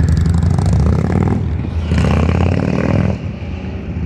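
Harley-Davidson V-twin motorcycles accelerating away down the road. The engine note comes in two loud pulls with a short dip between them, then falls away sharply about three seconds in as the bikes ride off.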